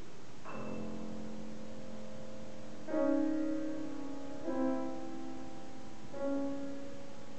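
Piano and cello playing a slow passage of four long held chords.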